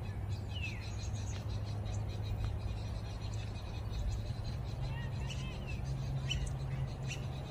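Wetland ambience: small birds chirping, with short rising and falling calls scattered through, over a steady low hum.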